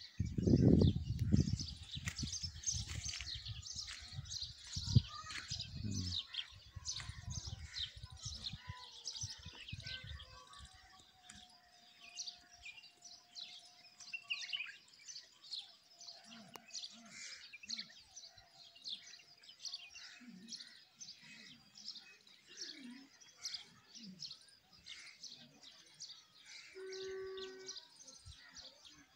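Many small birds chirping and calling together in a dense morning chorus. A loud low rumble on the microphone covers the first six seconds or so.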